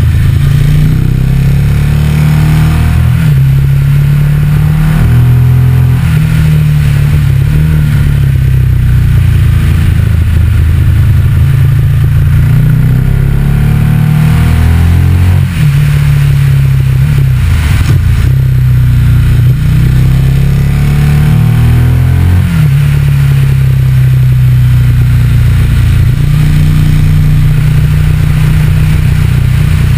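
Motorcycle engine running under way, its note rising and falling with the throttle, with brief breaks in the note about halfway through and again a few seconds later.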